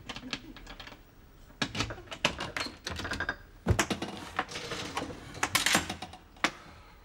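A front door being worked and opened: a run of irregular clicks, rattles and knocks from the latch, lock and letterbox flap, the loudest a single heavy knock about halfway through.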